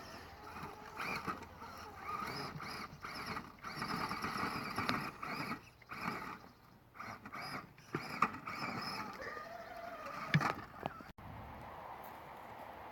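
Electric motor and geartrain of a radio-controlled scale rock crawler whining in short, uneven bursts as it is throttled on and off, with a few sharp knocks, the loudest about ten seconds in.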